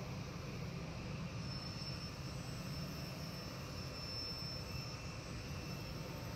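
CNC machining centre's spindle running steadily as its disc-shaped tool works along the edge of a curved furniture front, with a low hum under a thin high whine that comes in about one and a half seconds in.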